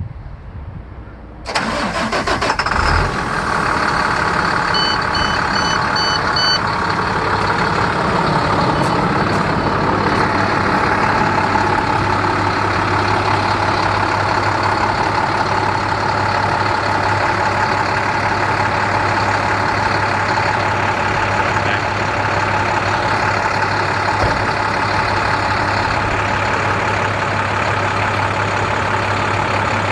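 Diesel engine of a 2011 International 4300 truck starting up about a second and a half in, then running steadily at idle. A run of five short high beeps sounds a few seconds after it starts.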